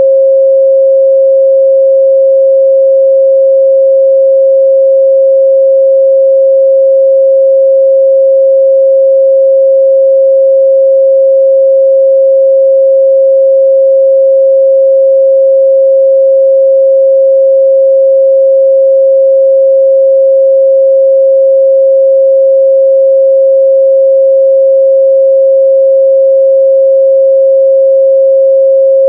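A steady 538 Hz sine-wave test tone, one pure unchanging pitch held at constant loudness.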